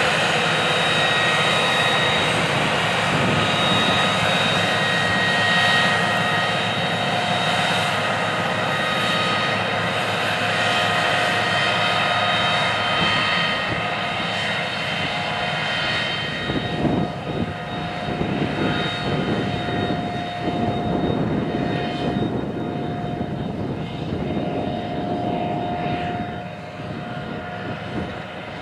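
Case IH 620 Quadtrac's big six-cylinder diesel engine working under load, towing a strip-till bar, with a steady high whine over the engine noise. It grows fainter about halfway through and again near the end as the tractor pulls away.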